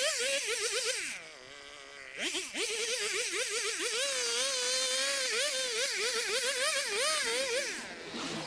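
Vintage Stihl HS 60 hedge trimmer's small two-stroke engine running at high revs while cutting, its pitch rising and falling quickly under the throttle. It drops back toward idle about a second in, picks up again just after two seconds, and eases off once more near the end.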